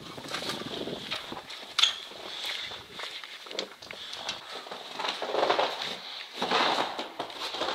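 Irregular footsteps scuffing and knocking on the floor, with a sharp knock near two seconds in and heavier steps in the second half.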